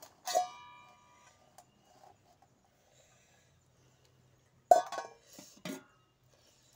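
A stainless steel plate ringing after being knocked by a hand and bangle while eating, once near the start and again sharply about five seconds in, with a brief softer sound a second later.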